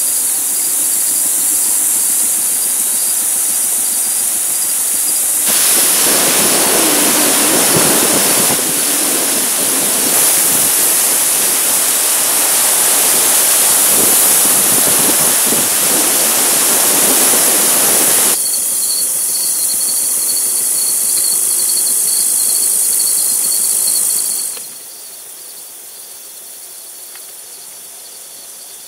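Loud, steady high-pitched buzz of an evening insect chorus, with a pulsing cricket-like trill under it. From about five to eighteen seconds in, a louder rushing noise covers it. Near the end the buzz drops away sharply, leaving a quieter insect trill.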